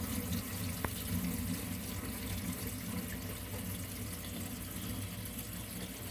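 Water draining from a filled kitchen sink, rushing steadily down the drain tailpiece and pipe. This is a leak test of the resealed cup drain. A faint tick sounds about a second in.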